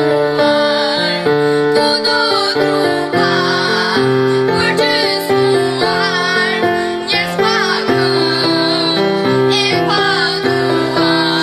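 A group of young girls singing a song together into a microphone over instrumental backing music.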